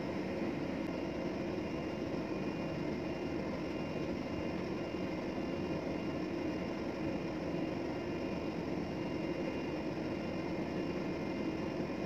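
A ship's machinery and ventilation droning steadily, with a few faint high steady tones over the drone.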